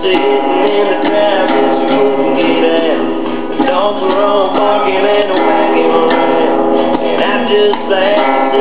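A young boy singing while strumming a small acoustic guitar.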